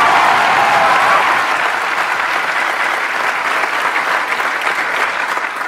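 Large audience clapping steadily, with some cheering voices in the first second.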